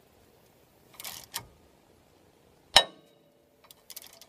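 Rusted front brake rotor on a 2003 Suzuki Grand Vitara giving a sudden loud crack with a short metallic ring, about three-quarters of the way in, as the rust bond to the hub breaks under the pull of a bolt in its jacking hole. A few small clicks from the spanner come before and after it.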